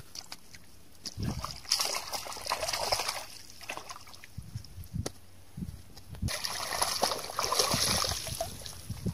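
Water splashing and running off a mesh keep net holding caught fish as it is worked in the pond water and lifted out, in two bursts about two seconds in and again about six seconds in.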